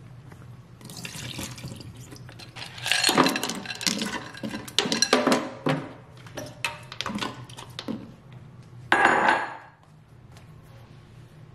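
Water and soft solids poured from a glass bowl into a stainless steel kitchen sink, with irregular splashes, clinks of the glass and clatters on the steel, and a short loud burst a little before the end.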